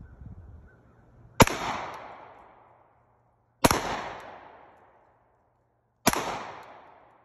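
Pistol shots at an outdoor range: three single shots about two and a half seconds apart, each a sharp crack followed by a long echo that dies away.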